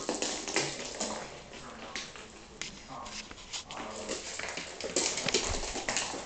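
A cat's jingle ball rattling and clicking as it is batted and rolls across a hardwood floor, in quick irregular bursts.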